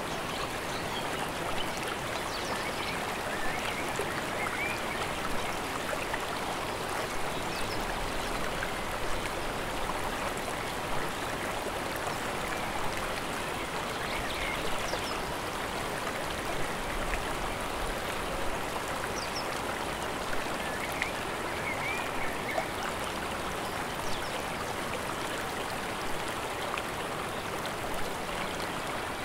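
Steady rush of running water from a mountain stream, with faint bird chirps now and then.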